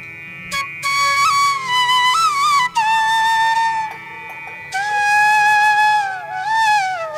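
Background music: a solo flute melody of held notes that bend and slide in pitch.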